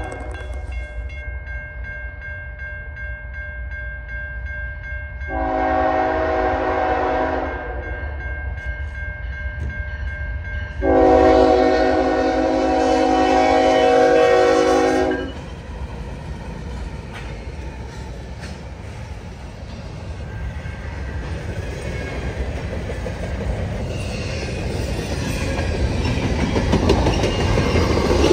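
Nathan K5HL five-chime air horn on a CN freight locomotive sounding two blasts: a short one about five seconds in and a longer, louder one of about four seconds starting near eleven seconds. Underneath, the approaching freight train rumbles, and the rumble grows louder near the end.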